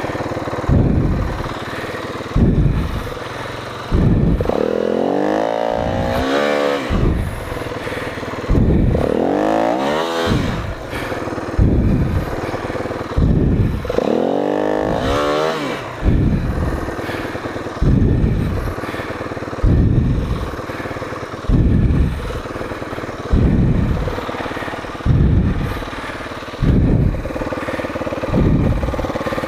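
Four-stroke off-road motorcycle engine blipped in short throttle bursts about every second and a half, with three longer revs that rise and fall in pitch about 5, 9 and 14 seconds in.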